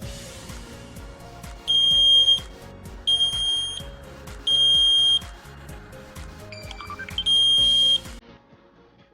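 Wi-Fi smoke detector alarm beeping: loud, high-pitched beeps, three about a second and a half apart, then a pause and a fourth, in the three-beep evacuation pattern. A short rising electronic chirp comes just before the fourth beep, and background music runs under it until it stops near the end.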